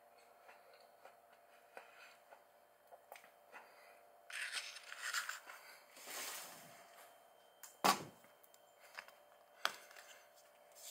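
Tabletop handling noises: a rustle lasting a few seconds from about four seconds in, then a sharp tap a little before eight seconds and a second one near ten, as wooden chopsticks are set down beside a paper takeout box and a pepper shaker is brought over.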